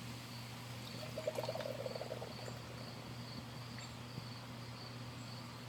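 Dry hopped ale poured from a can into a glass, with a short gurgle about a second in. Crickets chirp steadily in the background over a low hum.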